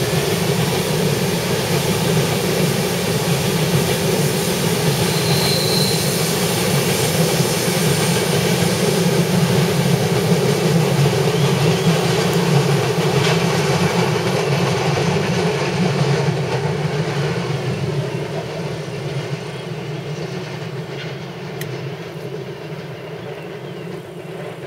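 Freight train of double-deck car-carrier wagons rolling past on curved track: a steady rumble of wheels on rails that fades over the last several seconds as the train moves away.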